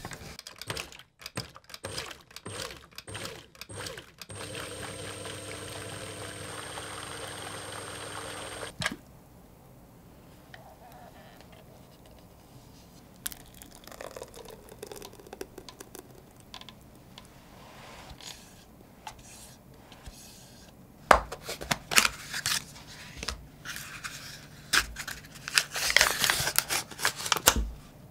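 Plastic lid clicked onto a Yamamoto countertop blender, then its electric motor runs steadily for about four and a half seconds, puréeing cooked blueberries, and stops abruptly. Later, thick blueberry purée is poured into a glass bowl. Near the end come loud crinkling and tearing sounds as the seal of a plastic cream cheese tub is peeled open.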